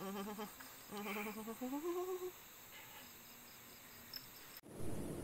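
A man humming a few wordless held notes, the last one gliding upward, over night insects chirping steadily. Near the end the sound cuts abruptly to a louder rushing noise.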